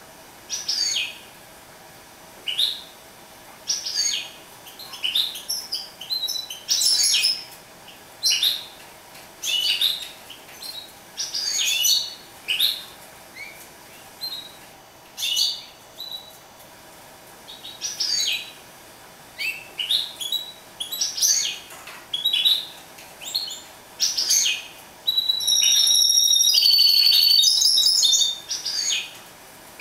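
Caged mule bird, a canary-hybrid finch, singing in short chirping phrases every second or so, then breaking into a longer, louder continuous warbling song with trills near the end.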